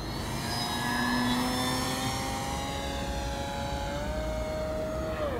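Electric motor and propeller of a 55-inch OMP Super Decathlon RC model airplane whining in flight. The pitch holds steady, rises a little about four seconds in, then falls away sharply at the end.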